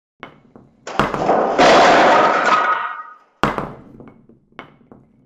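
A handful of small balls dropping through a wooden ball-drop board. A few light clicks lead into a dense clatter of many balls bouncing off the barriers for about two seconds. A sharp knock follows, then a few scattered bounces as the balls settle in the boxes.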